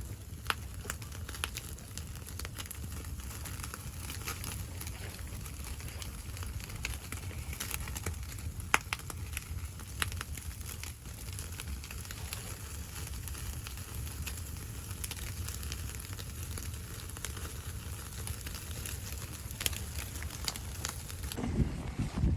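Wood fire crackling, with irregular sharp pops over a low steady rumble; one louder pop about nine seconds in.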